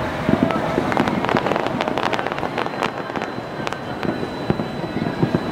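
Fireworks display: shells bursting in a dense, rapid run of sharp bangs and crackles.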